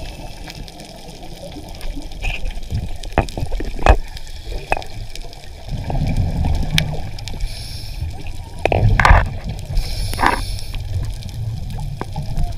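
Underwater bubbling and gurgling over a low rumble, with scattered sharp clicks and knocks. The bubbling swells about six seconds in and again around nine seconds in.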